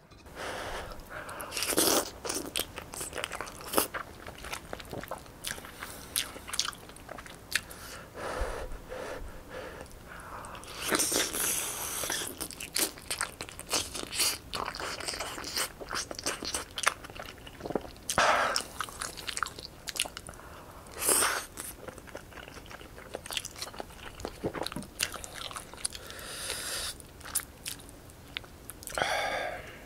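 Close-miked eating sounds: a person biting and chewing spicy tteokbokki, fish cake and glass noodles, with many small mouth clicks and smacks and a few louder, longer noisy stretches.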